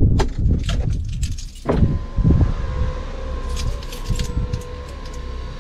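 Ignition keys jangling and clicking at the steering column of a Fiat Ducato motorhome as the engine is switched off. From about two seconds in, a steady electronic warning tone sounds, held until near the end.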